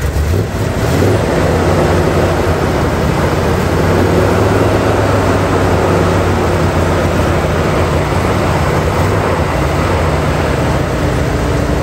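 Vehicle engine running close by: a steady low drone, a little louder from about a second in.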